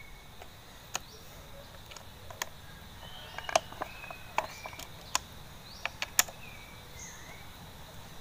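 Sharp metal clicks and taps, a dozen or so at uneven intervals, as an L-shaped hex key works the bolts holding the top cover of a large chainsaw.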